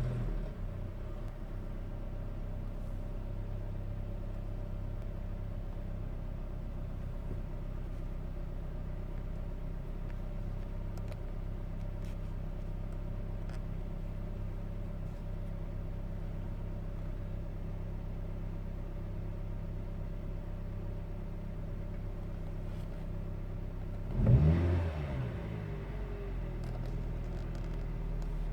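2010 Toyota Yaris engine idling steadily just after starting. About 24 seconds in, a single brief throttle blip rises and falls in pitch. The owner puts the rough, shaking idle down to a misfire.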